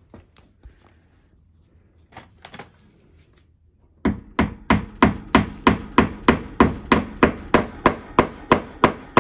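A plastic wall anchor being hammered into the wall: a few light knocks, then from about four seconds in a fast, even run of hammer taps, roughly four a second.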